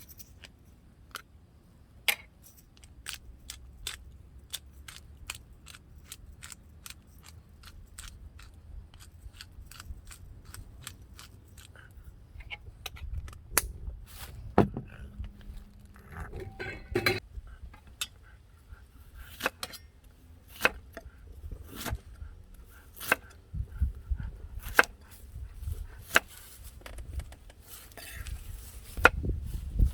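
Irregular sharp clinks and knocks of hard objects being handled, roughly one or two a second and busier in the second half, over a low rumble.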